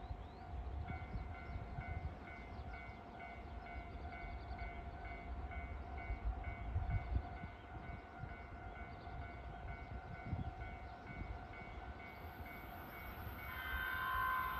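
A railway warning alarm sounds as a train approaches: a steady tone with a beeping tone over it, pulsing about twice a second. Shortly before the end, the oncoming limited express sounds its horn, over the rising hiss of the approaching train.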